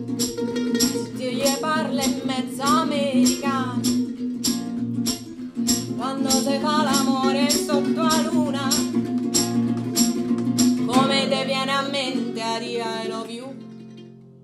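Live acoustic folk music: a woman singing over a mandolin and a strummed acoustic guitar, with a harmonica played from a neck holder and a steady beat of quick strokes. The music fades out near the end.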